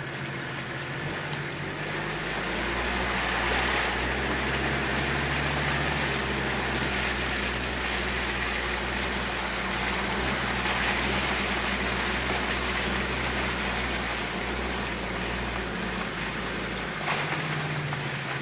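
Land Rover Discovery 2's Td5 five-cylinder turbodiesel engine pulling steadily through muddy floodwater, heard from inside the cab, with a continuous rush of water washing against the wheels and underside. The water noise swells through the middle and the engine eases near the end as the vehicle reaches dry ground.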